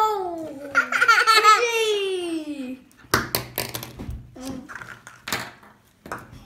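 A child laughing with a long, high squeal that slides down in pitch over the first three seconds. It is followed by a run of light knocks and clicks as plastic egg halves and small toys are handled on a wooden table.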